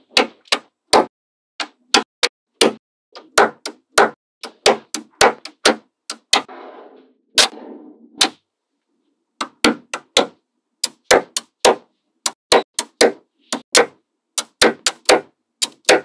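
Small magnetic balls clicking and snapping together as sheets of them are pressed onto a magnet-ball model: sharp, irregular clicks, with a stretch of softer rattling about six to eight seconds in and a brief pause just after.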